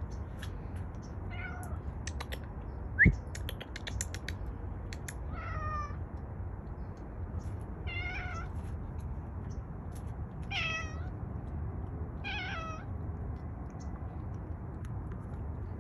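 Gray domestic cat meowing repeatedly in a wire crate, five meows a couple of seconds apart. About three seconds in there is one sharp, loud knock and a short run of clicks.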